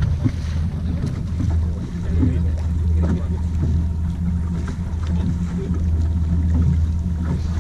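Steady low hum of a sailing yacht's inboard engine running, with some wind noise on the microphone.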